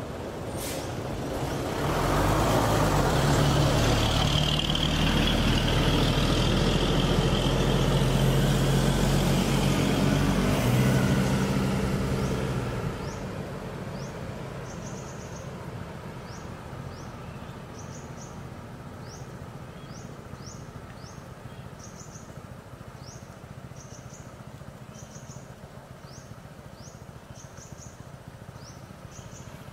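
A heavy truck's diesel engine runs loudly for about ten seconds, then dies away about twelve seconds in. After that only a low hum of the surroundings remains, with short high chirps repeating about once or twice a second.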